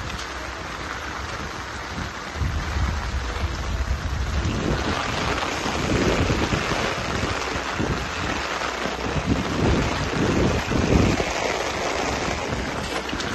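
Heavy rain with gusty wind buffeting the microphone, in a low rumbling hiss that grows louder about five seconds in.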